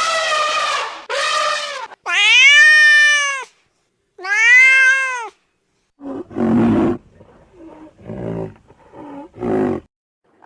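Cat meowing: a run of long, drawn-out meows whose pitch rises and then falls, the loudest two in the first half. In the second half come four shorter, lower, rougher calls.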